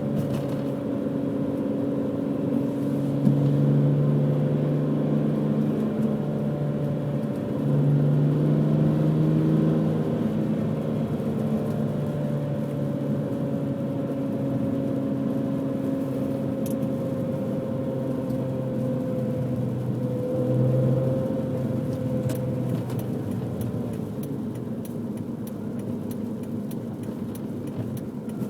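Stock BMW M3 engine and exhaust while driving, running at a fairly steady engine speed with brief louder pulls under acceleration a few seconds in, around eight seconds in, and again about twenty seconds in.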